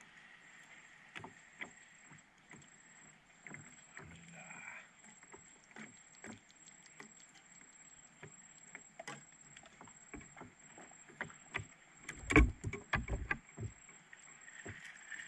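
Scattered small clicks and knocks of fishing tackle being handled in a wooden boat, with a cluster of louder thumps against the boat's wooden hull about twelve seconds in.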